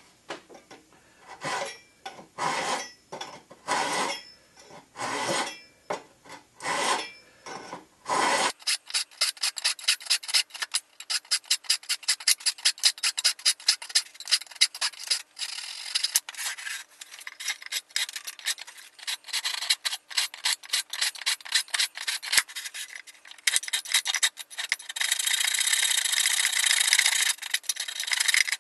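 A small hand pull saw cutting off protruding wooden splines at a frame corner, in separate strokes about one and a half a second. About eight seconds in it gives way to rapid, continuous filing strokes as the spline stubs are filed flush with the frame.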